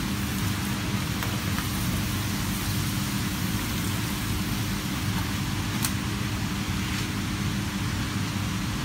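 Hot oil sizzling steadily in a pan as plain pappadoms are deep-fried, with a few faint pops. A steady low hum runs underneath.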